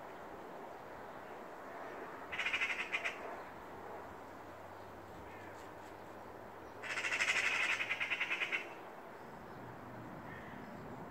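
Eurasian magpies giving their rattling alarm chatter at a cat, mobbing it. There are two bursts of fast chattering, a short one about two seconds in and a longer one of nearly two seconds in the middle.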